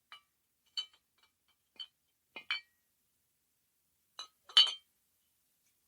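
Two glass bottles clinking together: a handful of separate bright clinks with a short ring, at uneven intervals, the loudest near the end.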